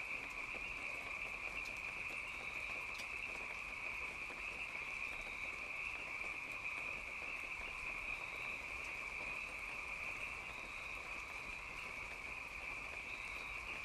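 Steady chorus of night insects, a constant high-pitched shrill that holds unbroken, with a faint low rumble beneath.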